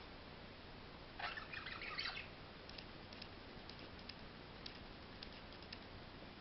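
Pet parrot giving a short, soft wheezy sound about a second in, the slight wheeze that comes with some of its breaths. Faint scattered ticks follow.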